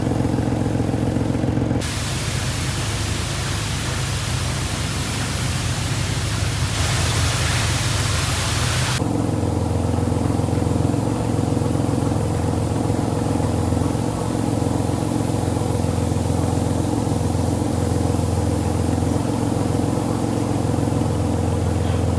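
Car engine running steadily, heard across several cuts. From about two seconds in until about nine seconds in, a loud hiss covers it.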